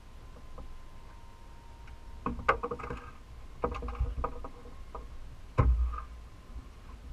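Knocks and thumps on a fiberglass boat deck in three short clusters, the loudest a heavy thump near the end, over a low rumble and a faint steady high tone.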